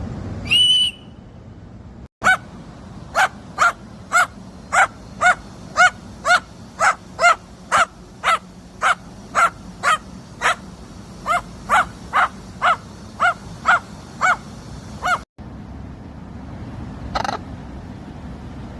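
A short, high squawk, then a long run of about two dozen short barks at roughly two a second, stopping abruptly, and one more call near the end.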